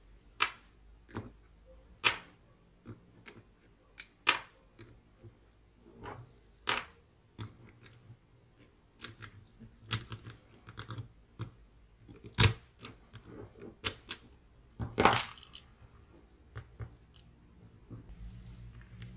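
Irregular sharp clicks and light knocks of steel pliers and small metal gears as the planet gears and planet carrier are picked out of a Bosch GSB 18V-EC cordless drill's planetary gearbox and the parts are set down.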